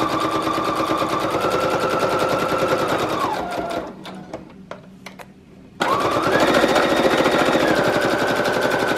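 Brother CE1100PRW computerized sewing machine stitching through paper: a motor whine with rapid needle clatter that speeds up about a second in, then slows and stops after about three seconds. A pause with a few light clicks while the paper is turned, then the machine starts again about six seconds in and runs on.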